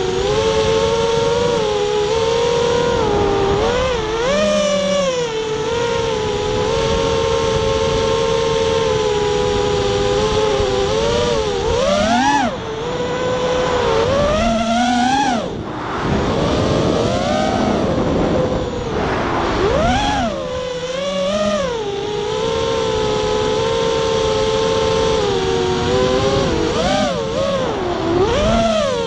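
Fury FPV race quadcopter's brushless motors and propellers whining, heard from its onboard camera. The pitch swoops up and down sharply again and again as the throttle is punched and cut in acro flying, with a stretch of rushing noise about midway.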